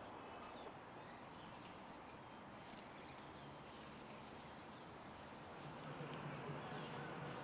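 Quiet outdoor ambience with a faint, rapid high-pitched ticking through the first half and a few short bird chirps. A low hum comes up near the end.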